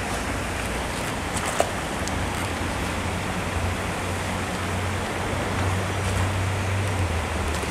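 Steady outdoor background noise: an even hiss over a low hum, with a single sharp click about a second and a half in.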